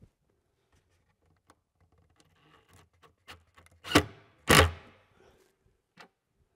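Assembly hardware being handled and fitted into the side of a racking cabinet: scattered light clicks and rubbing, then two louder knocks about four seconds in, half a second apart.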